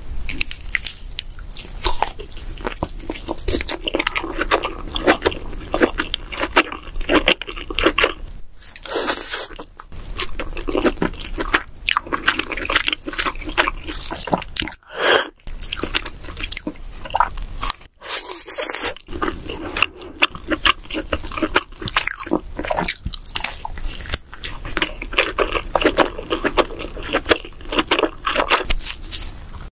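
Close-miked eating of king crab: continuous wet chewing, lip smacking and crunching as the crab meat is eaten, with a fork scraping meat out of the leg shells. There are two brief breaks about halfway.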